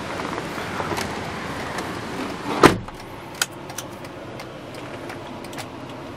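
A single loud thump about two and a half seconds in, followed by a few light clicks, over steady background noise.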